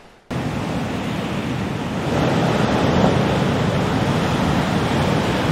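Ocean surf: a steady rushing wash of waves breaking over shore rocks. It starts abruptly and grows louder about two seconds in.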